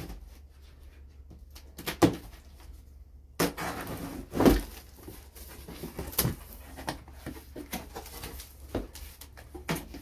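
Cardboard shipping box being opened by hand: packing tape pulled and flaps bent back, with a sharp knock about two seconds in, a longer tearing, scraping stretch in the middle, and scattered rustles and taps of cardboard.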